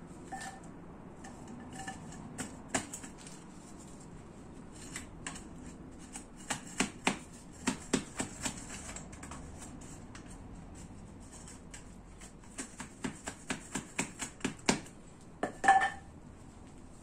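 Metal wire mesh being worked by hand into a basket liner: sharp clicks and taps of wire and tools, in two runs of about three a second, with a brief squeak near the end.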